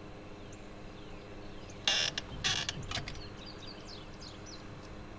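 Folding camp chair creaking and rustling as a person gets up out of it: two loud bursts about two seconds in, then a few clicks. Faint bird chirps follow.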